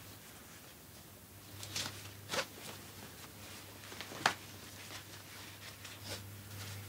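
Nylon webbing strap being threaded and pulled through a plastic backpack buckle: a soft sliding rasp with a few short sharp ticks of the plastic, the sharpest about four seconds in.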